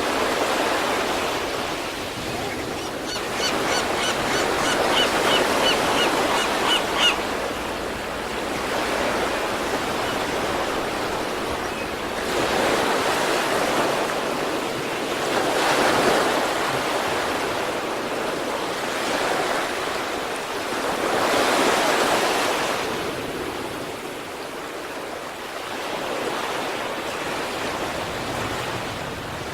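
East Sea waves breaking and washing on the shore, a steady rush of surf that swells with a louder wave every several seconds. Early on, a quick run of short high chirps sounds over the surf for a few seconds.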